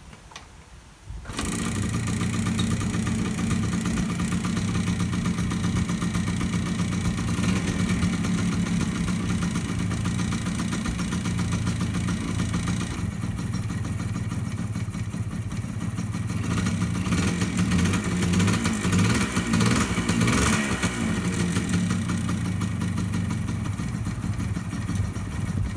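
1979 Yamaha DT100's single-cylinder two-stroke engine starting about a second in and then running at idle to warm up on fresh gas and oil, with the revs rising and falling a few times in the latter half.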